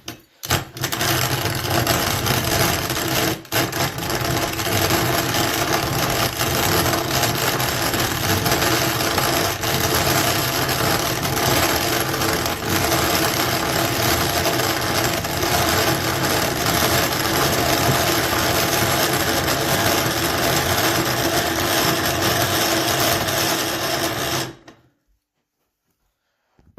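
Cast-iron burr grain grinder grinding rice, a loud steady grinding rattle that stops suddenly about 24 seconds in.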